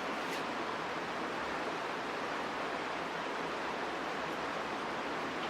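Steady rushing of a river's current, an even hiss of flowing water.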